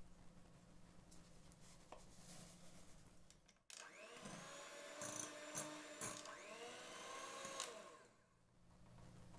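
Electric hand mixer running in a mixing bowl. It is faint at first, then louder for about four seconds from the middle, with its pitch sliding up and down.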